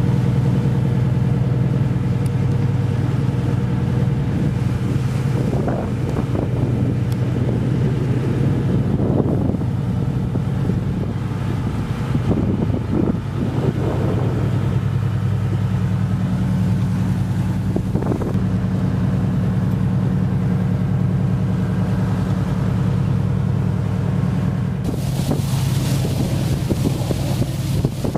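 Boat under way: a steady low engine drone, with water rushing along the hull and wind buffeting the microphone. The wind gets louder near the end.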